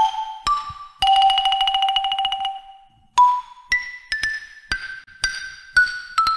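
Xylophone played with mallets: single short, bright struck notes, then about a second in a fast roll on one note lasting about a second and a half, a brief pause, and single notes moving up and down again.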